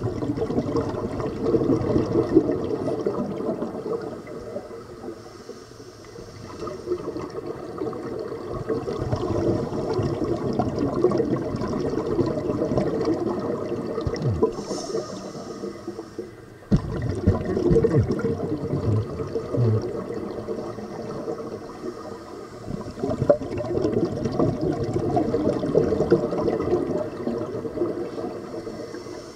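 Scuba regulator breathing recorded underwater: long gurgling rushes of exhaled bubbles, a few seconds each, alternating with quieter stretches between breaths.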